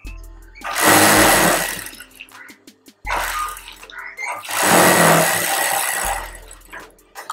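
Industrial sewing machine stitching along a fabric strip in two runs of about a second and a half each, one starting near the first second and the other about halfway through, with the motor humming low between them.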